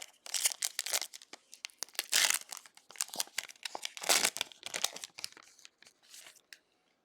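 A foil trading-card pack wrapper being torn open and crinkled by hand, in irregular crackling bursts that stop about six and a half seconds in.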